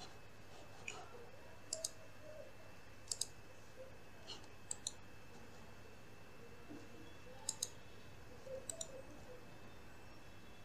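Computer mouse clicking, mostly in quick pairs, every second or so, over a faint steady hum with a thin high whine.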